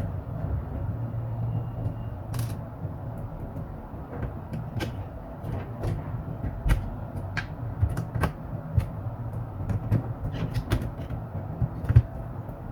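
Scattered small clicks and knocks of hands and tools working on a laptop, irregular and several a second at times, over a steady low hum.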